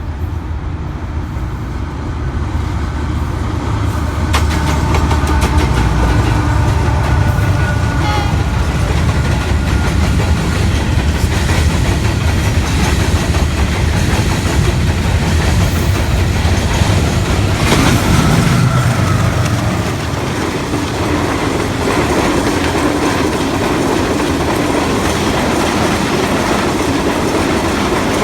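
Karakoram Express passenger train running past, a loud steady rumble with wheels clattering on the rails. It grows louder about four seconds in and eases a little near the end.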